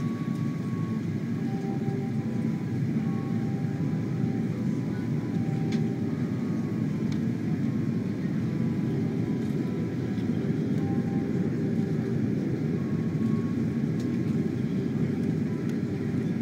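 Steady cabin noise inside a Boeing 747 airliner descending to land: a low, even rush of engines and airflow heard through the fuselage.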